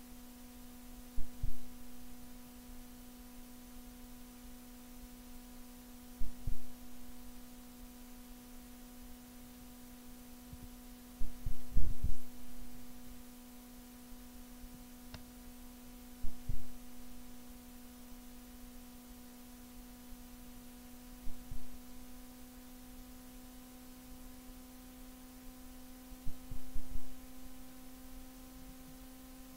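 A steady electrical hum with a low double thump about every five seconds.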